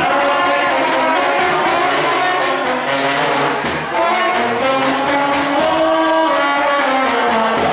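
Balkan trubači brass band playing live and loud: brass horns and tubas carrying a melody in held notes that step from pitch to pitch.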